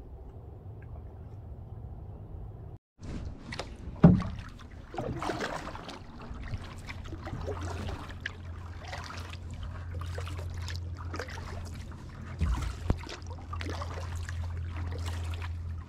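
Solo canoe being paddled: regular splashy paddle strokes dipping and pulling through the water, with a couple of sharper thumps against the hull, the loudest about a second after a sudden cut. A steady low hum fills the opening seconds, and a steady low rumble runs under the strokes later on.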